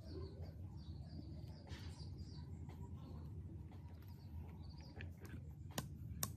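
Faint bird chirps over a low, steady background hum, with two sharp clicks near the end.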